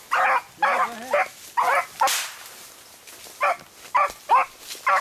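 Beagle hounds baying in short repeated barks, a rapid run of calls, a pause of about a second, then more calls: the cry of hounds running a rabbit's track.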